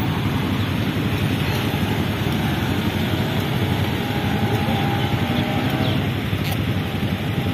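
Wind rumbling on the microphone over road traffic, with a vehicle engine faintly heard passing near the middle.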